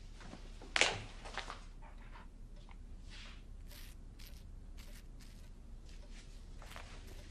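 Soft household noises in a quiet room: a sharp knock about a second in, then scattered light taps and short rustles.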